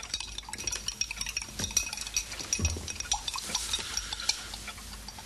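A rapid, irregular run of light clicks and clinks, with a faint high ringing tone over them.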